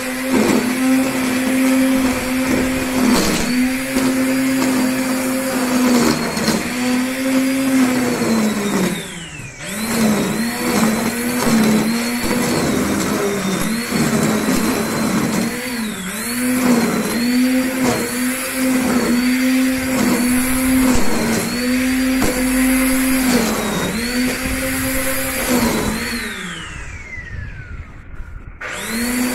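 Black & Decker GrassHog 800 W corded electric string trimmer running and cutting grass, its motor whine dipping in pitch about once a second as the line bites into the grass. Twice the motor winds down with a falling whine, about nine seconds in and near the end, and spins back up.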